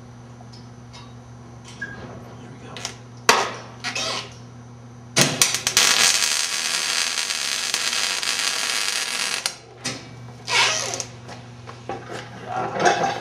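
MIG welder arc crackling and sizzling steadily for about four seconds in the middle, after a couple of short spurts of arc.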